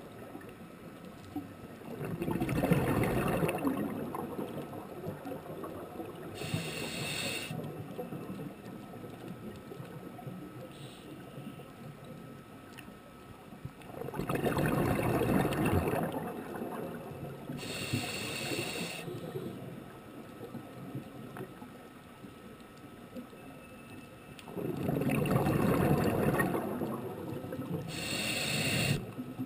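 Scuba diver breathing through a regulator underwater: three long bubbling exhalations, each followed a few seconds later by a short hissing inhalation, in a slow, regular cycle.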